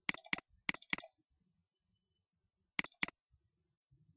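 Computer mouse double-clicking three times: three pairs of sharp clicks, each pair about a quarter second apart, with the last pair about three seconds in.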